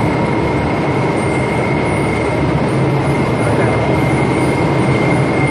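Automatic twisted cruller frying machine running: a loud, steady mechanical din with a constant high whine over a low rumble.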